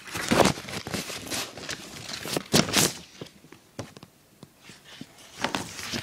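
Paper envelope and its contents being handled and pulled open, rustling and crinkling in short bursts, with a quieter stretch in the middle and more rustling near the end.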